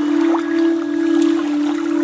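A steady electronic-sounding drone held on one low pitch, with fainter higher tones above it, and scattered small clicks like dripping water plus one short rising chirp.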